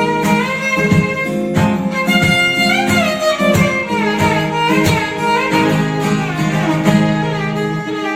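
Background music: a violin melody with sliding notes over a steady plucked-string accompaniment.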